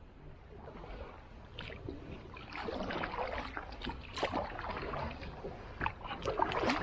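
Water splashing and sloshing around a small tour boat on the river, getting louder about two and a half seconds in.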